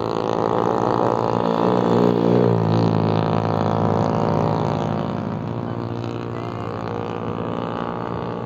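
Vespa scooter engine running under way; its pitch drops and shifts about two seconds in, then holds steady.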